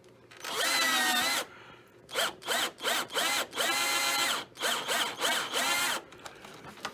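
Power drill driving a stubborn self-tapping screw, run in trigger bursts: one long run about half a second in, then a string of short pulses and two more longer runs, the motor whine rising as it spins up and dropping as it stops.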